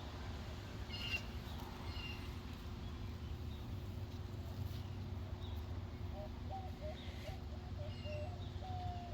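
Outdoor birdsong: a few short high chirps in the first few seconds, then a run of low, wavering calls from about six seconds in, over a steady low rumble.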